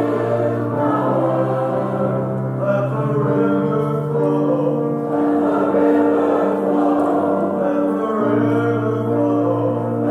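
Parish liturgical choir singing a worship song in held chords, the harmony shifting every two to three seconds.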